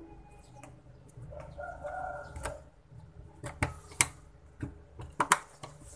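A DDR RAM module is pressed into a desktop motherboard's memory slot, giving a few sharp plastic clicks as it seats and the slot's retaining clips snap shut. The loudest click comes about four seconds in. Before the clicks, a faint pitched call sounds in the background.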